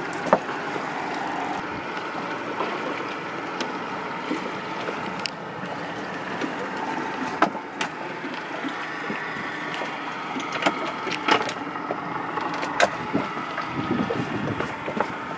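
Yamaha 90 outboard motor running steadily at low speed as a small boat moves through the water, with scattered sharp clicks and knocks on the hull and fittings.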